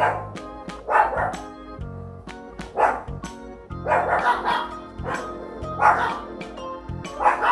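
Dogs barking in short, sharp barks, roughly one a second with a quick run of them in the middle, over background music.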